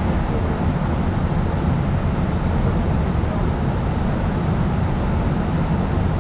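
Steady rushing of fast-flowing creek water, a continuous low rumbling noise with no breaks.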